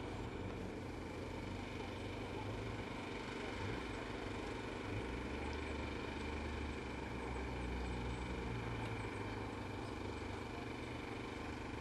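Faint, steady low rumble of a distant vehicle engine over outdoor background noise.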